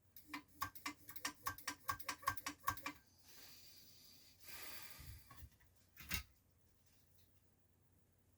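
A quick run of about a dozen sharp mechanical clicks, roughly four a second, from a full-height 5.25-inch floppy drive's mechanism being worked during lubrication. A short soft hiss and a single knock follow.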